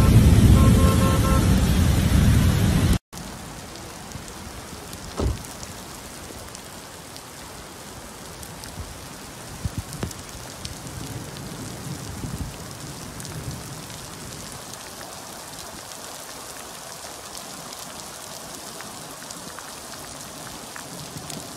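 Steady rain on a wet street: an even hiss with scattered faint drop ticks and a few low thumps. The first three seconds hold a much louder, rougher rush of noise that cuts off suddenly.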